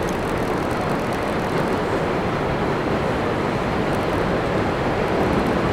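NYC Subway R62 train running on an elevated steel line: a steady running noise with no distinct clanks or horn.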